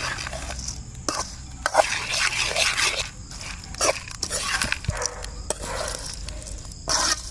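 Puffed-rice masala pori being stirred and tossed with a spoon in a bowl: an irregular dry rustling and crunching of the puffed rice, with scrapes and clicks against the vessel.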